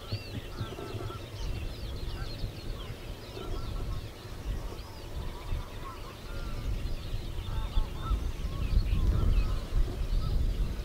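Great crested grebes calling with harsh, honking calls during their head-shaking courtship display, among many short high bird calls. A low rumble grows stronger near the end.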